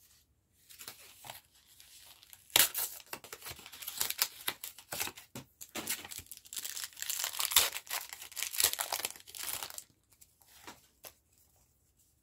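Foil wrapper of a Pokémon TCG booster pack being torn open and crinkled, a quick run of rips and crinkles starting about two and a half seconds in and stopping about ten seconds in.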